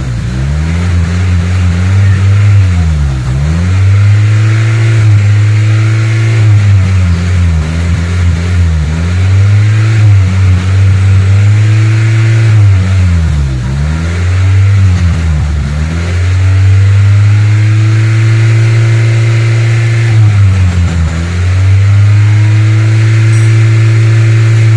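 Honda Accord Cielo engine held at raised revs during a throttle-body carbon clean with spray cleaner, kept up so it doesn't stall. The revs sag sharply and climb back about six times.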